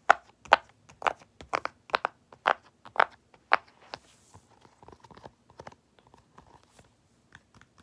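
Large silicone pop-it fidget toy having its bubbles pressed: a string of sharp pops about two a second, loud for the first four seconds, then fainter and sparser.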